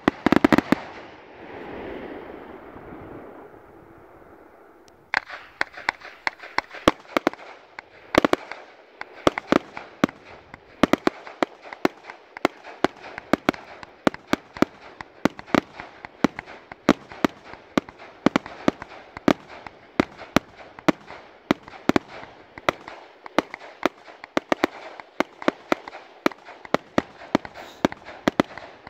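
Ghengis category 4 firework cake firing: a few loud bangs at the start, a short lull, then from about five seconds in a rapid, unbroken string of sharp bangs, several a second, as the shots launch and burst.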